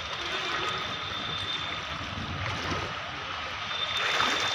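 Floodwater sloshing and splashing around people wading through a waterlogged street, a steady watery noise that grows a little louder near the end.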